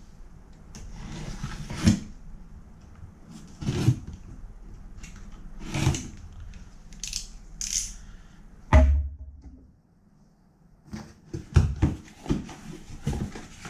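A cardboard box being opened by hand: irregular scraping and rustling of the flaps and packing, a heavy thump about nine seconds in, then a run of quick clicks and rustles near the end.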